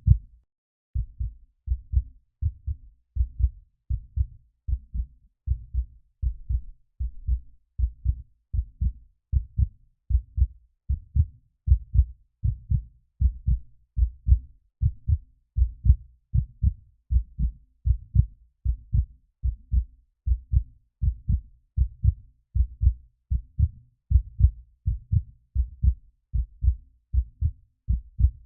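Heartbeat sound effect: a steady run of low double thumps (lub-dub), a little over one beat a second, starting about a second in.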